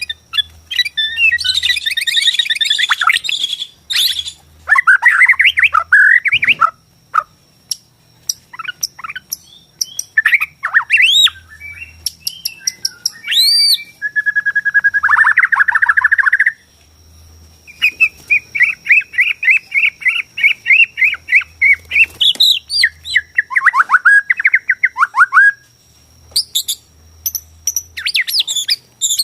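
White-rumped shama of the Bornean race singing a loud, varied song of clear whistles, rapid runs of repeated notes and harsh chattering phrases, with a short pause a little past halfway.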